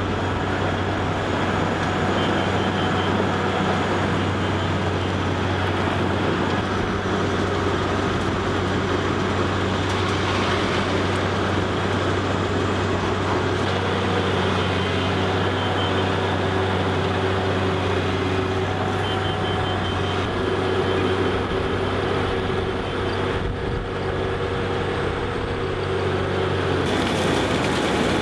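Heavy vehicle engine running at a steady, unchanging pitch, with a change in the sound near the end.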